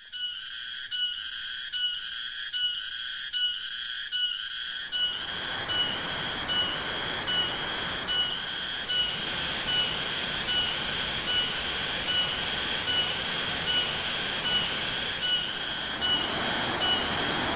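A high-pitched pulsing call repeating about twice a second, with rushing river rapids joining in about five seconds in and running on under it.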